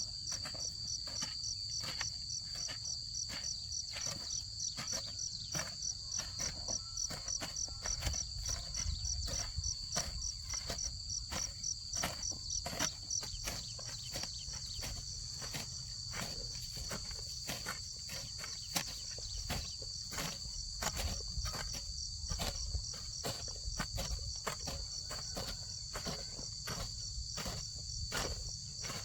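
Insects chirring in a steady, high-pitched drone that pulses quickly and evenly, with frequent irregular clicks and knocks over it.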